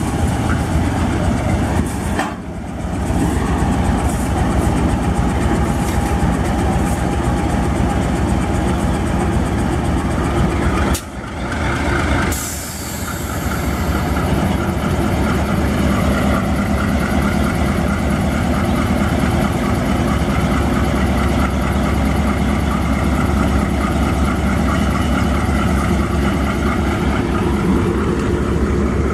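GE U20C diesel-electric locomotive's diesel engine running steadily as it pulls a string of flatcars slowly past. A steady high hiss joins about halfway through.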